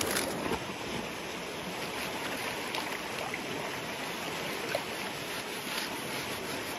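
Shallow, stony river running with a steady rush of water, with a few faint clicks.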